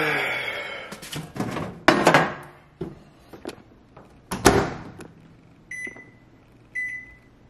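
Microwave oven being loaded: a plate clatters, the door shuts with a sharp thump about halfway through, then the keypad beeps twice.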